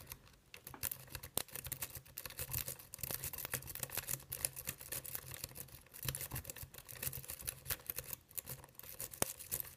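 A metal double-peak rake being scrubbed rapidly back and forth in a pin-tumbler lock cylinder: fast, irregular clicking and scraping as the pins are raked under light tension, without the lock opening.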